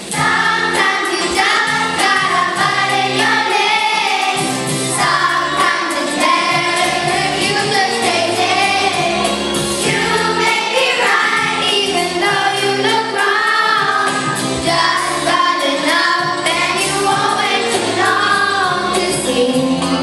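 Children singing a song together over instrumental accompaniment with a steady beat.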